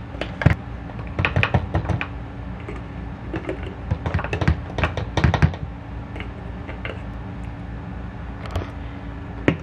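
Light clicks and taps of a scoop against a protein-powder canister and a clear tumbler as two scoops of powder are dug out and tipped in, in clusters about a second in and again around four to five seconds in.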